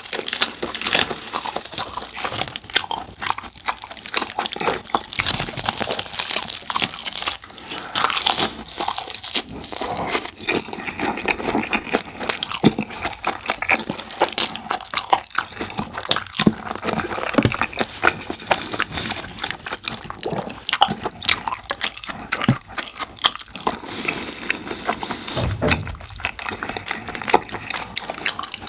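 Close-miked eating sounds of saucy rice: dense, wet chewing and smacking with many small clicks, and occasional crunchier bites.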